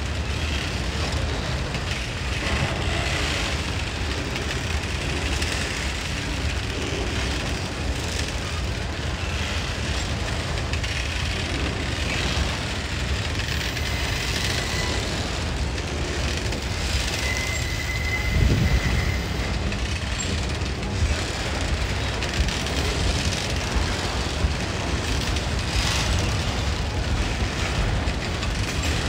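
Train rolling past: a steady rumble with irregular clacks from the wheels and two brief high squeals in the middle.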